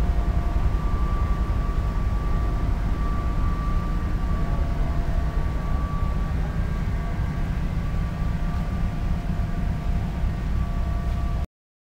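Passenger railroad coaches rolling slowly past on the rails: a steady low rumble of wheels and trucks with a faint thin high whine over it. The sound cuts off suddenly near the end.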